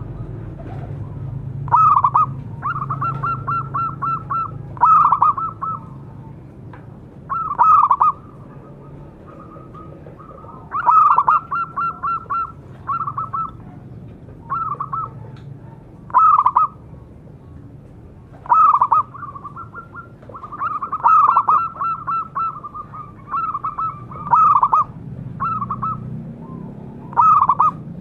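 Zebra dove cooing in its staccato song: repeated phrases every two to three seconds, each a loud cooing note, often followed by a fast run of short, even coos.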